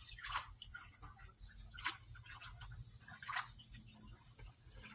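A steady, high-pitched insect drone from the mangrove forest, with soft irregular splashes of the boat's paddles in the water now and then.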